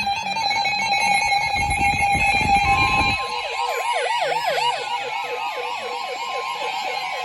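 NOAA weather alert radios going off: about three seconds in, a steady alert tone starts along with a rapid warbling siren-like alarm that swoops about four times a second. Before that, a low rumbling noise runs under steady electronic tones.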